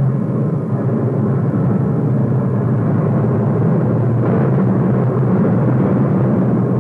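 A steady, loud low rumble with no rhythm or clear pitch, easing slightly in its upper range a little past halfway.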